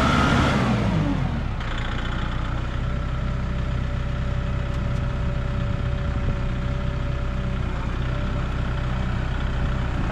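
Kubota MX5400 tractor's four-cylinder diesel engine running as the tractor moves slowly. In the first second or so the engine speed drops, and then it runs steadily at low speed.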